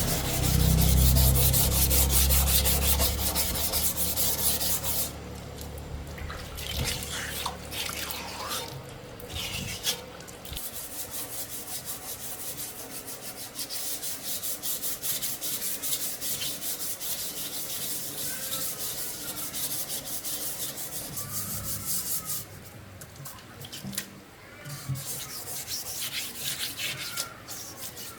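Rust being scrubbed off the metal parts of a tire changing machine. A loud, fast abrasive sound runs for about the first five seconds, then gives way to quieter, rhythmic strokes of scrubbing and scraping with small squeaks.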